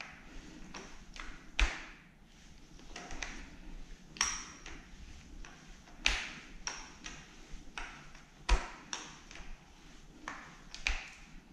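Sharp metallic clinks and pings from the metal parts of a Makita MEA3201M engine chainsaw being handled by hand. There are about five louder pings with a short ring, and lighter clicks between them.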